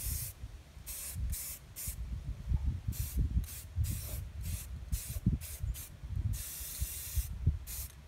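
Aerosol spray paint can hissing in many short bursts, with one longer spray of about a second near the end. A low rumble runs underneath.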